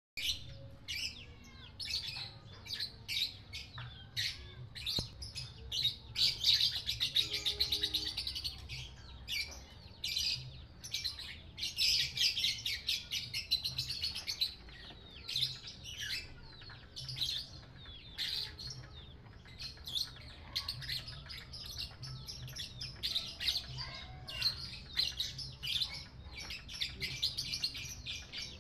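Caged lovebird singing in the long chattering "ngekek" style: a string of sharp high chirps that twice breaks into long, fast runs of chatter, about six and twelve seconds in.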